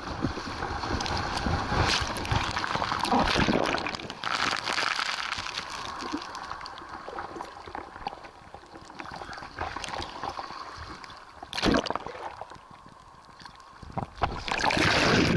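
Ocean water sloshing and splashing around a camera held at the surface, in irregular surges. There is a short loud splash about 12 seconds in, and a longer, louder rush near the end as a wave comes through.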